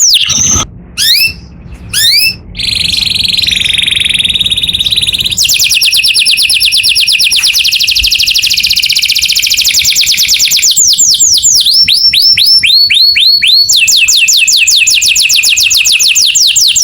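Canary singing loudly: long, fast trills of rapidly repeated rising notes, switching between rolls of different speed and pitch. Near the start and again partway through, the trill gives way to slower series of separate rising notes.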